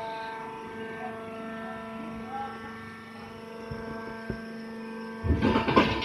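Movable rice husk baler running with a steady machine hum. About five seconds in, a loud, rough burst of noise comes for nearly a second.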